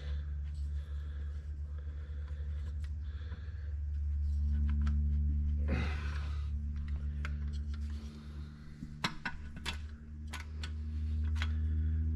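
Steady low hum that swells louder twice, with a few sharp metallic clicks and clinks of hand tools on metal in the last few seconds.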